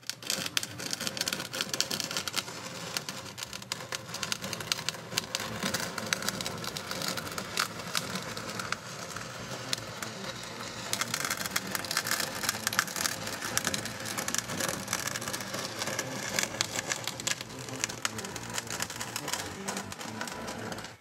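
Small hand trowel dragged slowly over wet cement, a continuous gritty scraping with dense irregular clicks as the blade smooths the surface.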